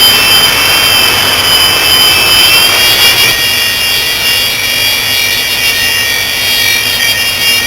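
Small electric motors of a 2-channel toy RC helicopter spinning its rotors, a steady high whine whose pitch wavers slightly.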